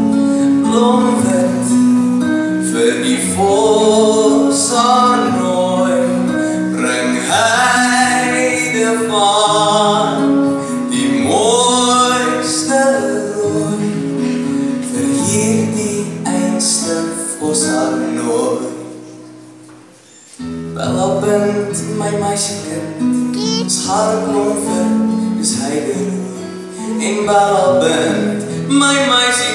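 A man singing a song into a microphone over amplified musical accompaniment. About twenty seconds in, the music drops almost to a pause for a moment, then comes back in.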